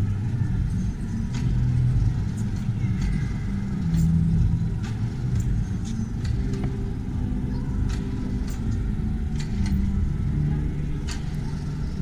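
Ambience of a large indoor hall: a steady low rumble with scattered light clicks and faint, indistinct voices.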